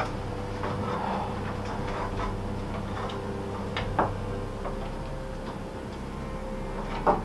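Scattered light clicks and taps of a measuring line being handled against a long wooden board, with sharper knocks about four seconds in and near the end, over a steady low hum.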